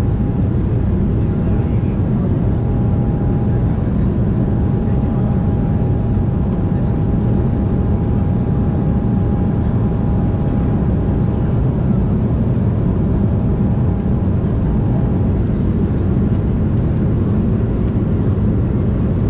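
Steady cabin noise inside an Embraer E190 airliner in flight: a dense, even low rumble of airflow and its General Electric CF34 turbofan engines, with a thin steady whine over it that stops about fifteen seconds in.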